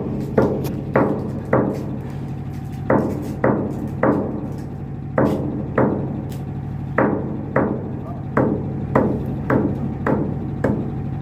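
Sharp hammer-like knocks, about seventeen of them, coming roughly every half second in runs, each with a short ringing tail, over the steady low hum of the tugboat's idling engine.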